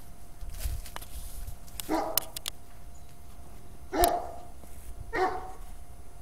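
Bullmastiff puppy barking three times in play at a cat, short barks with the second the loudest.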